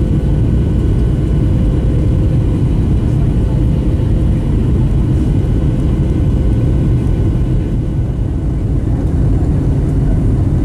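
Steady cabin noise of a Boeing 737-800 with its CFM56-7B jet engines, a low rush of engine and airflow noise with a faint steady whine above it.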